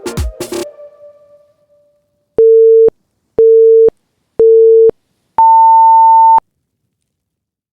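Workout interval timer counting down: three short beeps about a second apart, then one longer, higher beep marking the switch between work and rest. Electronic dance music fades out just before the beeps.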